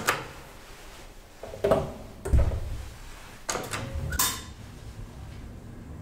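A 1964 ASEA-Graham traction elevator's car doors and mechanism clunking and rattling: a knock at the start, then a cluster of knocks with a low rumble about two seconds in and again around three and a half to four seconds in.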